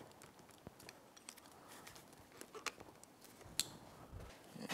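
A few faint, scattered clicks and small handling noises of needle-nose pliers and rubber fuel hose being worked at an outboard's mechanical fuel pump. The sharpest click comes about three and a half seconds in.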